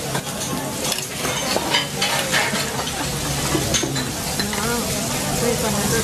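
Fat sizzling and bubbling on a hot steel teppanyaki griddle, with scattered clicks and clinks of metal utensils.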